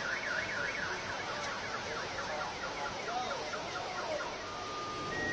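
Several car alarms going off at once. One warbles rapidly up and down, a slower wailing tone joins midway, and steady alarm tones sound near the end, over a steady hiss of rain.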